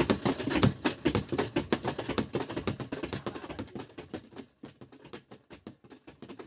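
LG washing machine's spin dryer coasting down after being switched off, a rapid irregular rattling and clicking that thins out and fades away over several seconds.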